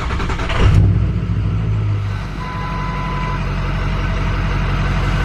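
Ford 6.0L Power Stroke V8 diesel starting up: it catches under a second in, runs up briefly and settles into a steady idle by about two seconds. A short single electronic beep from the dash sounds about midway.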